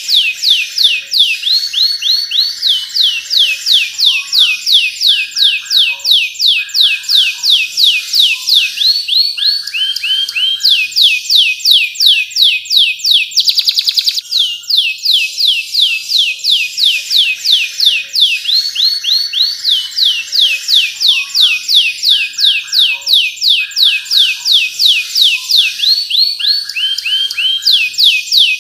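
Domestic canary singing a long unbroken song: rapid runs of high down-slurred notes, several a second, mixed with lower rolling trills, and a brief fast buzzing trill about halfway through.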